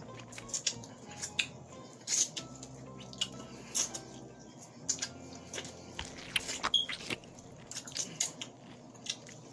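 A person biting and chewing corn on the cob: a run of short, sharp, wet clicks and crunches as the kernels are bitten off and chewed.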